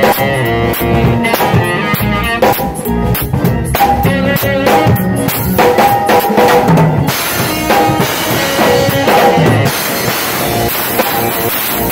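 Drum kit played in a groove, with kick drum, snare and cymbals, over a band's steady pitched instruments.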